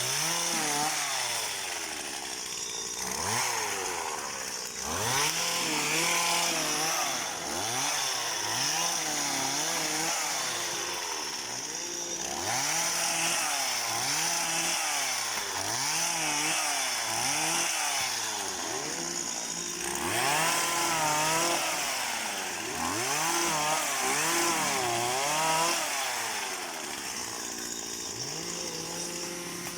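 Small petrol engine of a motorised pole pruner, revving up and falling back over and over, about once every second or so, as it cuts oil palm fronds.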